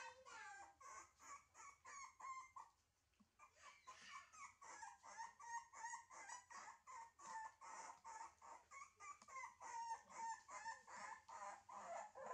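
Faint, fast run of short high-pitched animal calls, about five a second, pausing briefly about three seconds in.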